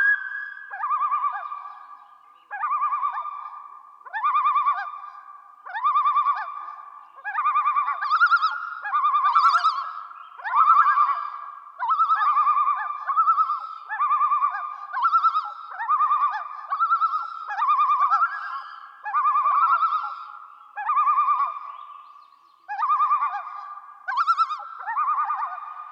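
Common loon calling: a long run of quavering, wavering phrases, repeated about once every second and a half.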